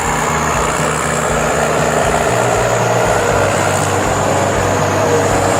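An engine running steadily at an even speed, with no change in pitch.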